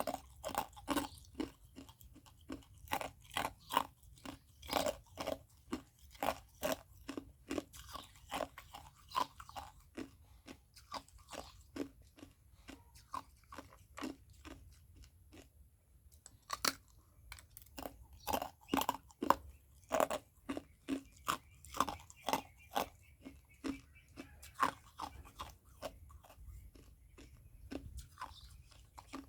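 Ice being bitten and chewed, a rapid run of sharp, irregular crunches with a brief pause about halfway through.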